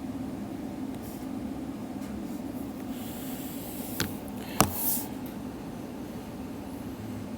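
Steady low room hum, with a short rustle and two sharp clicks about four seconds in, the second louder.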